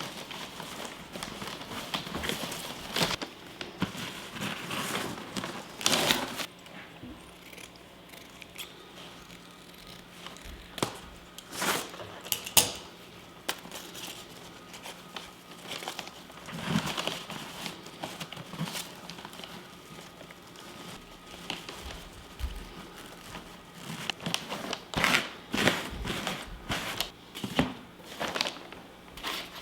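Irregular crinkling, rustling and tapping, as of packaging or paper being handled close by. A faint steady hum starts about six seconds in.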